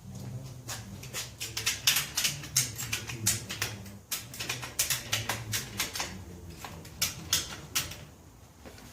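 Fast, irregular metal clicks and knocks over a steady low hum, from loader frame parts being worked into place, which are stuck.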